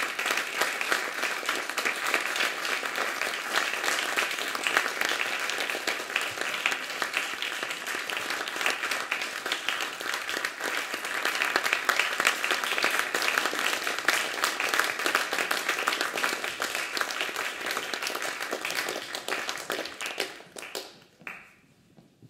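Audience applauding steadily, dying away about two seconds before the end.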